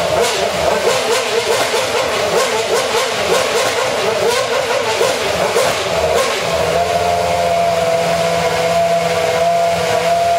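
McLaren MP4-23 Formula One car's 2.4-litre Mercedes-Benz V8 running, its revs rising and falling rapidly as the throttle is blipped, then held steady from about six seconds in.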